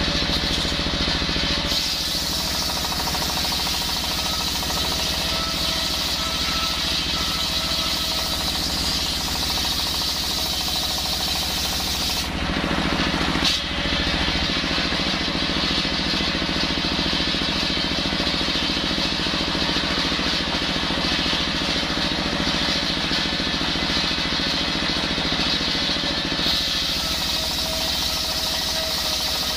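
Stationary single-cylinder diesel engine running steadily under load, driving a large circular saw blade that rips lengthwise through a hard coconut palm log. The cutting sound changes briefly about twelve seconds in, as the cut reaches the end of a pass and the log is fed again.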